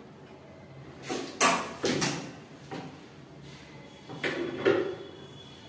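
Short knocks and clatters of a hydraulic gas strut and wall-cabinet fittings being handled during installation, a quick run of them in the first couple of seconds and two more a little past four seconds in.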